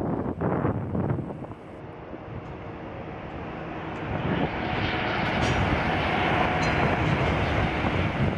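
Turboprop airliner's engines at takeoff power, a steady rushing drone that swells from about four seconds in. Wind buffets the microphone in the first second or so.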